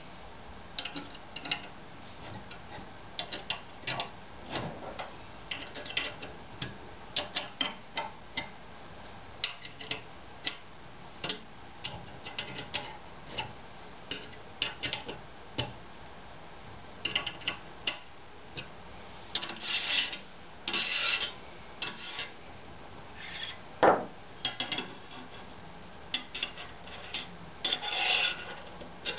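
Irregular light clicks, clinks and scrapes of small metal hardware and aluminium extrusion being handled on a wooden workbench, with one sharper knock about two-thirds of the way through. Near the end a longer rubbing scrape as a steel linear rail is laid onto the frame.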